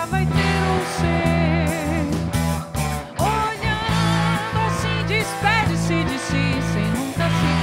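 Live rock band playing: electric guitars, electric bass and drum kit together, with sustained notes wavering in pitch over a steady bass line.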